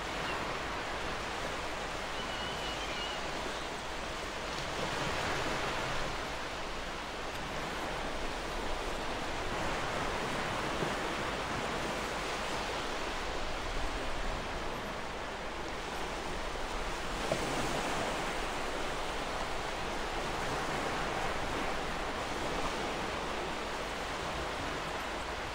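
Steady rushing noise that swells and eases every few seconds, with a few faint ticks.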